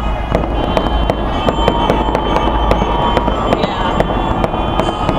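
Fireworks display exploding in a rapid, continuous run of sharp cracks and pops.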